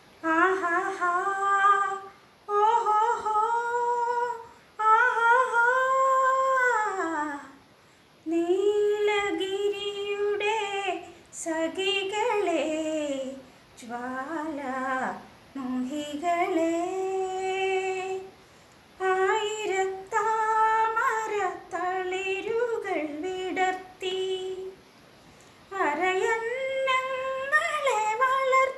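A woman singing a Malayalam song unaccompanied. She sings long, held phrases, with short breaks for breath about every two to four seconds.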